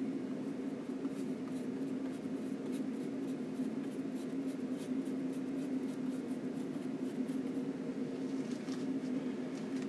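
Light, scratchy strokes of a long flat oil-painting brush dabbing paint onto a linen panel, coming and going, over a steady low hum.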